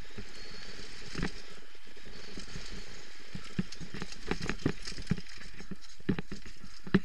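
Downhill mountain bike ridden fast down a forest dirt trail: a steady rush of wind on the helmet camera's microphone and tyre noise, broken by irregular knocks and rattles as the bike hits bumps and stones. The knocks bunch up about four to five seconds in, and the sharpest comes near the end.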